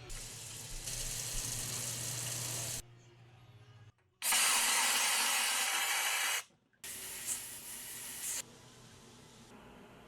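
Airbrush spraying in three bursts of hiss, each a couple of seconds long and cutting off sharply; the middle burst is the loudest.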